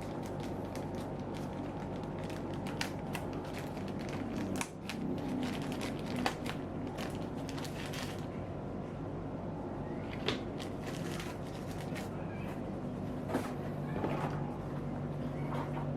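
Irregular clicks, taps and light creaks from handling a laptop and its packaging, over a steady low hum.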